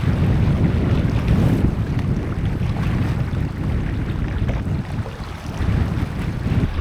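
Heavy wind buffeting the microphone in a loud, uneven low rumble.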